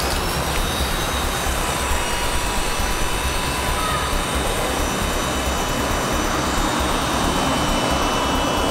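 Electric motors of a WLtoys V912 4-channel RC helicopter whining steadily as it lifts off and hovers, over a steady rushing noise; the whine rises in pitch just at the start.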